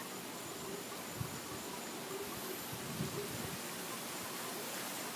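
Quiet outdoor evening ambience: a steady hiss with a faint, high, steady tone and a few soft low rustles.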